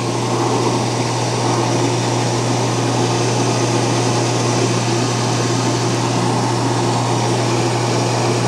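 Dishwasher drain pump running steadily with a low, even hum as it pumps the water out through the discharge hose during the drain cycle.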